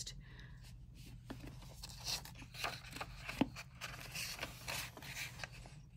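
A hardcover book being opened and handled: its paper dust jacket and pages rustle and scrape softly, with small crinkling clicks.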